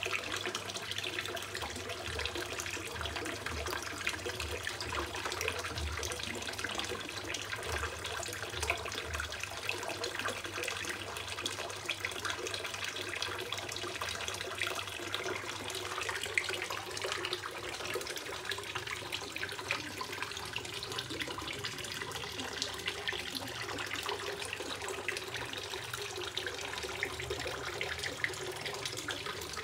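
Water from a fountain spout and a filter outlet pipe splashing steadily into a small fish pond.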